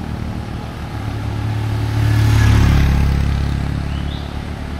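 A motor vehicle's engine running, swelling louder about two seconds in and then easing off.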